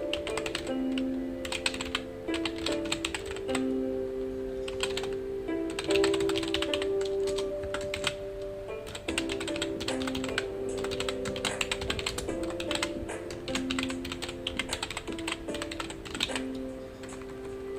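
Typing on a computer keyboard: quick runs of key clicks with short pauses between them. Soft background music of held notes plays underneath.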